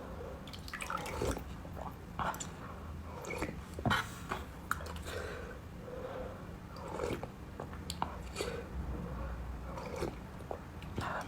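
Close-up eating sounds: chewing with wet mouth smacks and short irregular clicks, several each second or two, as a bowl of soup-based food is eaten.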